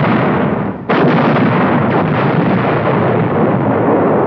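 Artillery fire and bursting shells. A sharp blast hits about a second in, followed by a continuous dense rumble of explosions.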